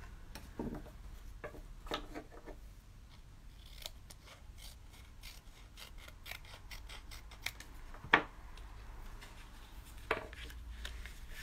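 Small gold stork-shaped scissors snipping through coloured paper, a run of short, light snips trimming a red paper layer, with one sharper, louder click about eight seconds in.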